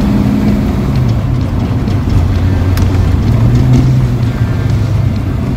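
Fox-body Mustang's V8 with a B303 cam running under way, heard from inside the cabin: a steady low drone that rises in pitch as the car picks up speed about three seconds in, then eases off.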